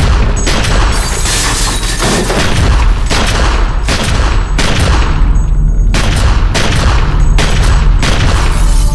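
Handgun fired again and again in a gunfight, about a dozen loud shots roughly one or two a second, each ringing out in the room, over a steady low rumble.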